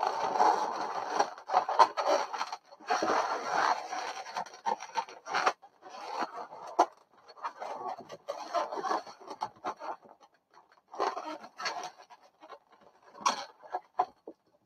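Inflated latex modelling balloons rubbing and scraping against each other in irregular bursts as one is threaded through the woven balloon heart.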